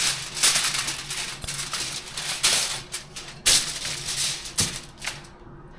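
Aluminium foil being handled and crinkled in a run of loud, irregular rustles, dying down near the end.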